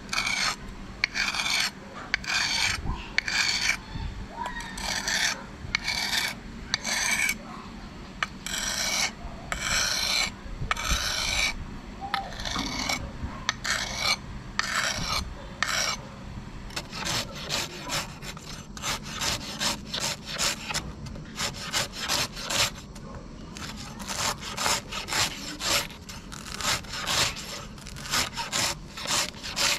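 Steel knife blade drawn back and forth on a whetstone, one rasping stroke about every second. About halfway through this gives way to quicker, shorter strokes, about three a second, as the freshly sharpened knife slices thin shavings off a banana stem onto a wooden chopping block.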